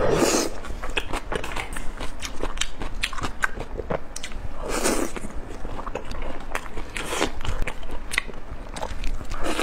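Close-miked eating of spicy sauce-coated grilled meat skewers: wet, crackly chewing and mouth clicks, with louder bites near the start, about halfway through and near the end.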